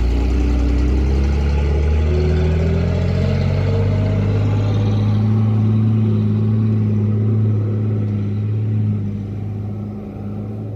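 Mitsubishi Fuso truck's diesel engine labouring up a steep climb under heavy load. Its pitch rises over the first few seconds, then holds steady as the truck pulls past, and it fades near the end.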